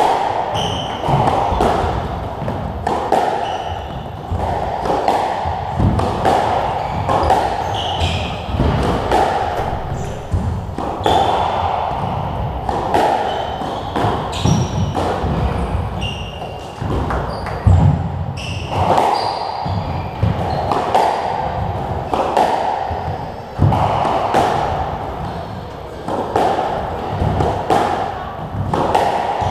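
Squash rally: a squash ball smacking off rackets and the walls again and again, every half second to a second, with short squeaks of court shoes on the wooden floor.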